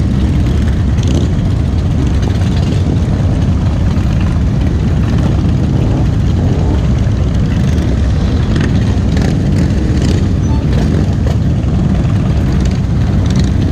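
Many motorcycle engines running at low speed in a slow-moving pack, a steady, dense, low rumble.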